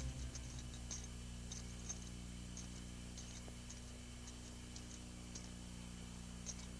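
Quiet background: a steady low hum with faint, irregular high ticks scattered through it.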